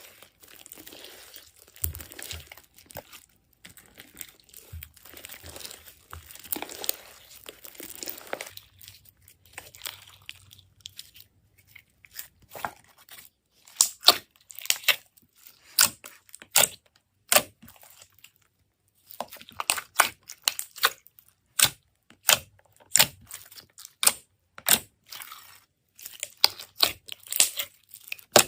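Slime being squeezed and pulled apart by hand, with crinkly rustling and tearing at first, then a run of sharp snaps and clicks from about halfway through.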